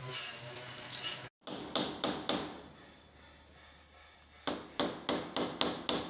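Mechanical washing-machine timer knob being turned by hand, clicking from one notch to the next. There are four sharp clicks near the two-second mark, then a faster run of seven or eight clicks, about three to four a second, from about four and a half seconds in.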